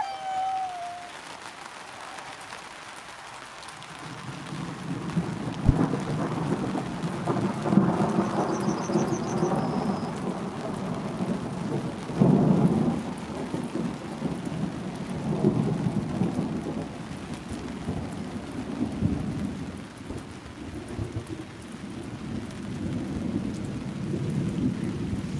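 Thunderstorm: rain hissing steadily, with rolling thunder that swells and fades several times, starting a few seconds in.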